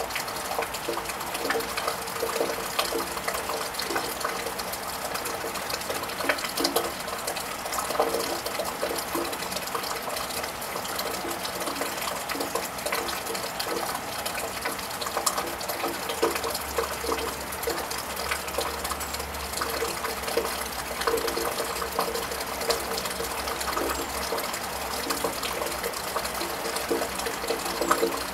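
Steady rain falling on a tiled roof, a dense even patter with many small drop ticks. A low rumble comes in a little past halfway and lasts about four seconds.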